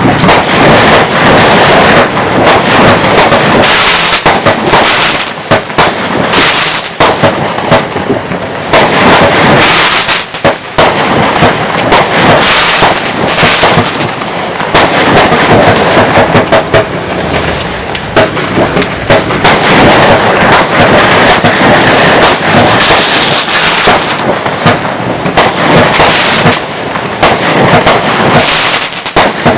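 Compact fireworks cake (the Essentials 'Texas Tornado') firing: a dense, unbroken volley of rapid shots and crackling, with brief lulls about ten seconds in and again past twenty-five seconds.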